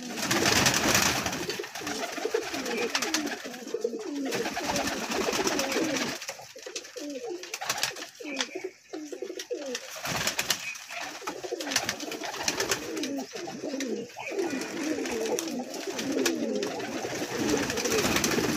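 A flock of domestic pigeons cooing together, many wavering coos overlapping, while they peck grain from a wooden feeding tray with a steady patter of quick ticks.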